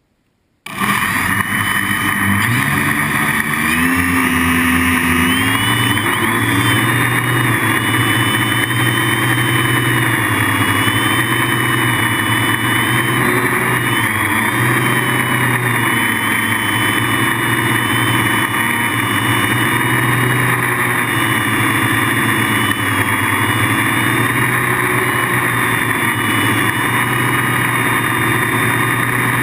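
Brushless motors and propellers of an H-frame FPV quadcopter in flight: a steady buzzing whine whose pitch shifts up and down with the throttle. It starts abruptly about half a second in.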